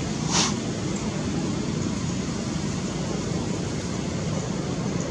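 Steady outdoor background hiss and rumble, with one short, sharp high squeak about half a second in.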